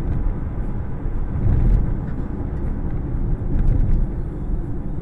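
Steady low rumble of a car driving on a snow-covered road, engine and tyre noise heard inside the cabin through a dashcam microphone.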